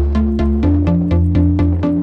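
Electronic background music with a steady beat, about four strokes a second, over sustained bass notes that change every half second or so.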